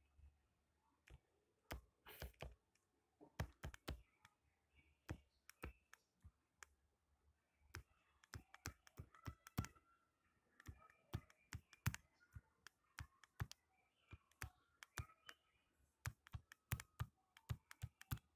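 A stylus clicking and tapping on a tablet's screen during handwriting: irregular, short, sharp clicks, faint overall.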